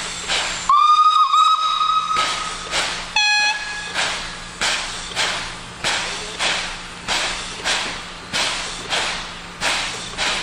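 Steam locomotive 97 501 working a train, its exhaust beating in a steady chuff, a little under two beats a second. About a second in it gives a long whistle blast of about two seconds, then a short, lower toot.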